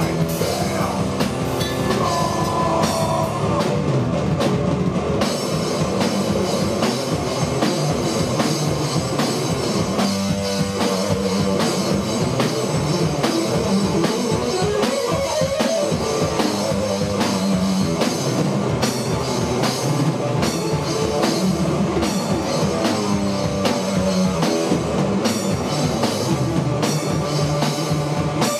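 Live rock music: electric guitar played over a drum kit, loud and steady.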